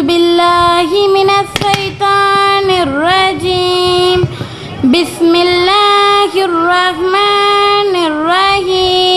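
A girl reciting the Quran in melodic tajweed style, holding long steady notes with ornamental dips in pitch, in phrases broken by short pauses for breath.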